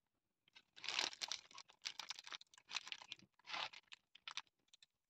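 Faint crinkling and rustling of a paper burger wrapper in the hands, in several short crackly bursts, as a bacon burger is lifted and bitten into.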